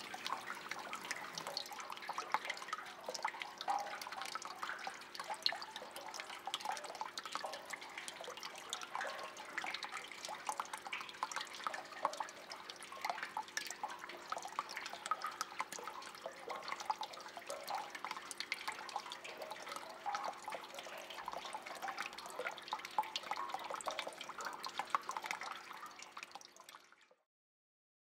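Water dripping and trickling in many small irregular drops, over a faint low steady hum; it fades out near the end.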